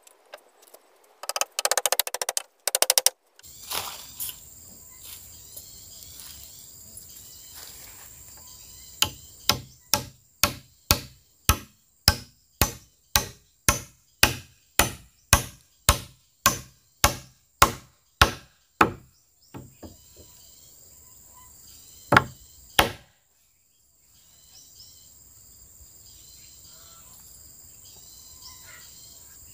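A short rapid rattle, then a steady run of about twenty sharp knocking blows, one and a half a second, that stop and are followed by one last blow. The blows are typical of hammering or chopping.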